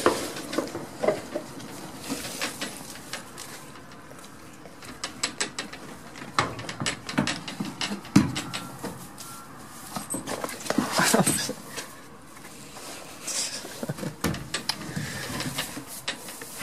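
Goats moving about in a wooden pen: scattered knocks, clicks and rustles, with a short rising call about eleven seconds in and a faint steady hum underneath.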